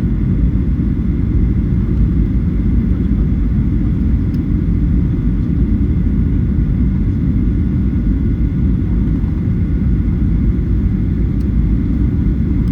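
Steady low rumble of jet engine and airflow noise inside the cabin of a Boeing 737-900 on descent toward landing, with a faint steady high whine.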